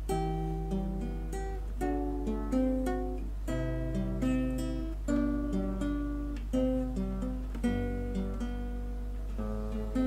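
Background music: a plucked string instrument, like an acoustic guitar, picks out notes about every half second, each ringing and fading, over a steady low hum.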